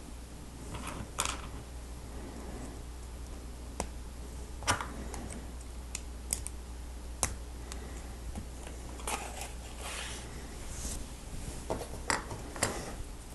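Hard plastic Lego Technic pieces clicking and rattling as a built model is pulled apart by hand: irregular sharp clicks, about ten scattered through, with softer handling rustle between them.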